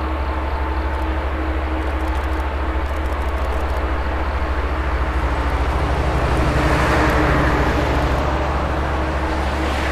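Boeing 787 Dreamliner's Rolls-Royce Trent 1000 turbofans at takeoff power during the takeoff roll: a steady jet roar that swells louder about six to eight seconds in.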